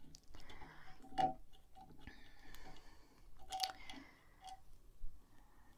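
Faint, irregular small metallic clicks and ticks from a screwdriver working the motor-mount screw of a Singer 66-6 sewing machine, with a couple of louder clicks about a second in and midway.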